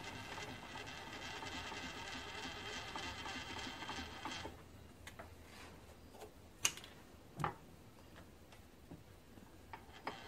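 The table handwheel and leadscrew of a Grizzly G1007 mill being cranked by hand, a steady mechanical whirring that stops after about four and a half seconds. Two sharp knocks follow, and the cranking starts again briefly near the end.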